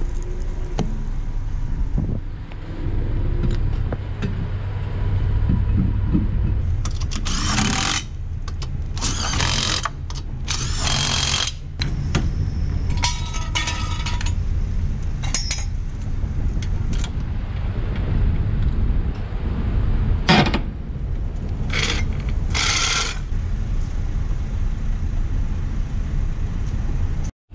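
Metal tool clatter as a car wheel is refitted: a lug wrench turning and clicking on the lug nuts and jack hardware clanking, in short bunches over a steady low rumble.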